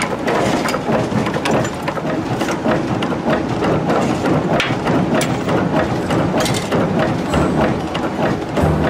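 A mechanical forging power hammer striking rapidly on a hot axe head in its dies: a dense, continuous metallic clatter of blows.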